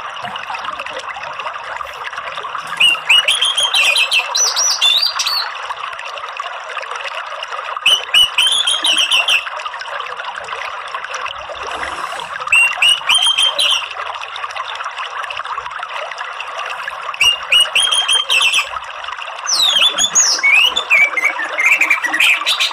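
Orange-headed thrush singing short bursts of twittering song, about six phrases a few seconds apart, over a steady rush of running water.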